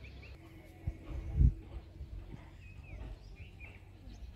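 Outdoor rural ambience: one long held animal call, scattered bird chirps, and a few low thumps, the loudest about a second and a half in.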